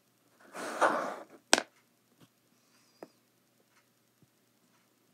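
Hands working kinetic sand: a brief rustle about half a second in, a sharp click about a second and a half in, then a smaller click and faint scattered ticks.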